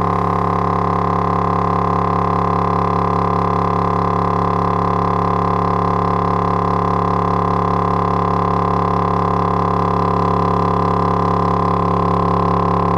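Logitech Z5500 subwoofer driver, out of its enclosure in free air, playing a steady 35 Hz test tone at large cone excursion as a stress test: a constant low drone with strong higher overtones that does not change.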